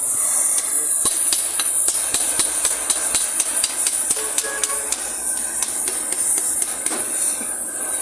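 Quick light taps of a tool at work, about five a second for several seconds, then a few scattered ones, over a steady high hiss.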